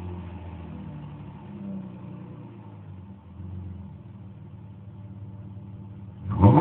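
Exhaust of a 2006 Chrysler 300's 3.5-litre V6 running through custom pipes with the rear muffler deleted: idling with a couple of light throttle blips, then revved sharply near the end.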